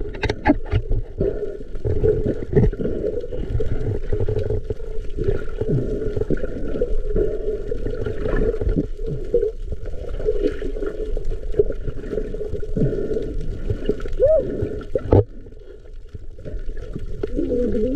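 Muffled underwater sound with gurgling and bubbling, as picked up by a submerged camera while spearfishing. A sharp click comes about fifteen seconds in, and the sound is briefly quieter just after it.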